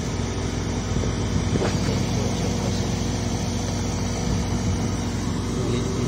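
A newly fitted CAJ4461Y hermetic refrigeration compressor running steadily with an even hum, just after being vacuumed and charged with refrigerant.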